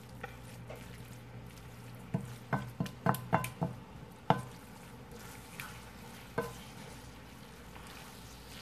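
Wooden spoon stirring and scraping a skillet of ground beef, rice and diced tomatoes, with irregular knocks of the spoon against the pan, bunched together in the first half and sparser later, over a faint steady background hiss.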